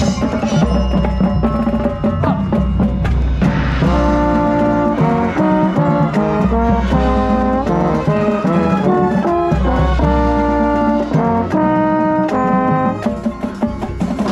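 Marching band playing: brass section in loud held chords over drums and low bass, the brass chords coming in about four seconds in.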